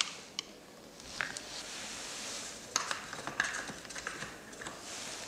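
Metal type sorts being picked from a wooden type case and set by hand into a metal composing stick: scattered light metallic clicks at an irregular pace.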